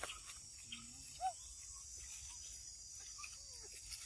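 Steady high-pitched insect chorus, with a few short rising-and-falling calls and scattered clicks over it; the loudest call comes about a second in.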